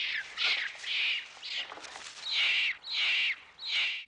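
Rhesus macaques screaming in a squabble: a run of about seven high-pitched screams, each under half a second, coming faster and louder in the second half.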